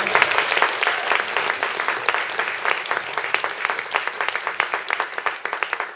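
Audience applauding, dense clapping that thins out and fades away toward the end.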